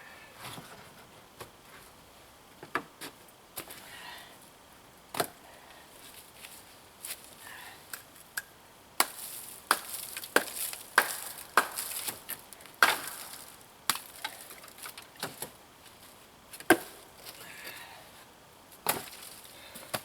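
Firewood being chopped and handled: irregular sharp wooden knocks and cracks, coming thicker and louder in the middle, with a few hard single hits near the end.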